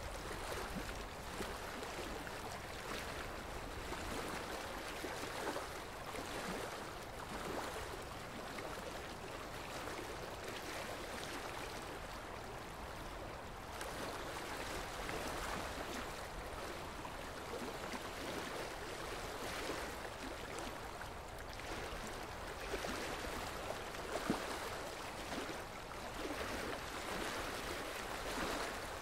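A steady rushing noise like running water, swelling and easing every second or two.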